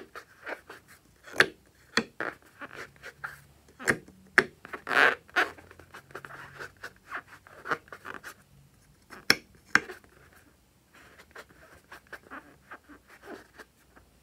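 Fingers squeezing and rubbing the skin of a filled rubber balloon: rubbery squeaks and rubbing with scattered sharp clicks, louder squeezes now and then.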